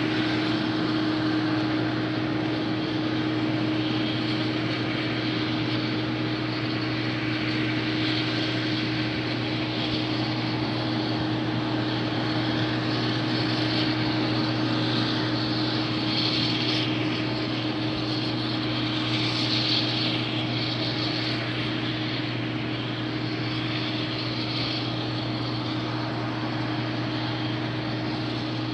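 Combine harvester running steadily, its engine and threshing machinery making a constant drone.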